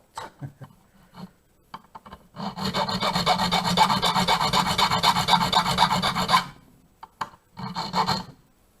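Hand file rasping across a key blank in quick back-and-forth strokes, cutting the blank down for the lock's pins. A few light clicks come first, then about four seconds of steady rapid filing begins about two seconds in, with a short second run of strokes near the end.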